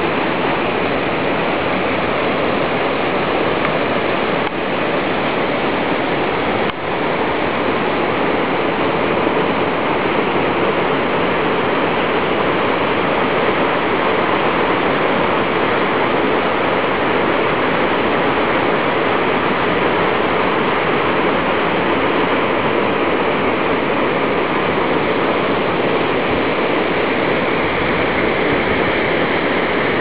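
Waterfall: a steady, even rush of falling water, dipping briefly twice in the first seven seconds.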